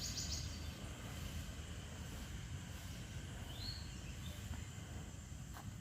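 Quiet background noise. A high, rapidly pulsed trill, as of an insect, fades out in the first half second, and one faint short chirp comes about three and a half seconds in.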